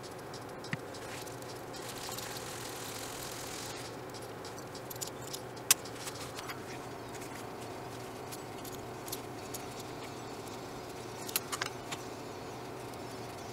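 Handling noises from a small black leather knife sheath with a metal snap fastener: cloth rubbing for a couple of seconds, then one sharp click about six seconds in and a few quick clicks near the end, over a steady low hum.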